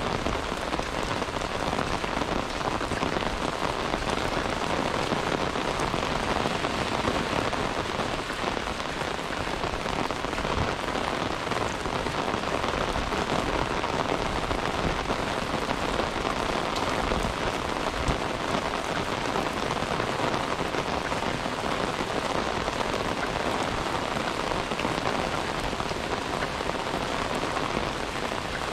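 Steady rain falling, a dense, even patter of drops that holds at the same level throughout.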